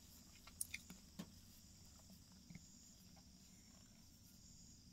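Near silence: faint room tone inside a car, with a few small faint clicks in the first second or so and one more about two and a half seconds in.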